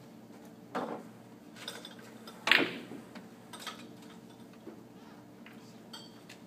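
Pool shot: the cue tip strikes the cue ball with a sharp click about a second in, and the balls knock together and against the table. The loudest clack comes about two and a half seconds in, followed by a few lighter clicks.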